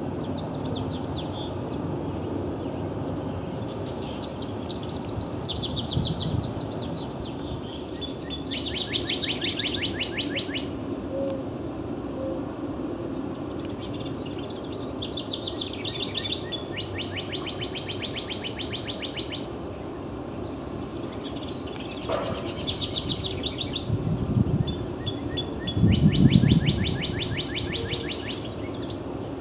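Northern cardinal and house wren singing in turn: about five song bouts, each opening with high jumbled notes and ending in a lower, fast, even trill. A brief low rumble sounds under the last trill near the end.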